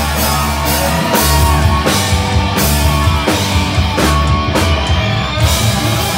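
Loud rock music from a live band: a steady drum kit beat with guitar and bass.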